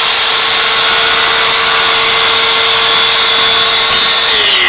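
Makita LS002GZ 40V cordless slide compound mitre saw running at full speed with a steady high whine as its blade trims the end of a glued-up wooden board. Near the end the motor's pitch starts to fall as it winds down.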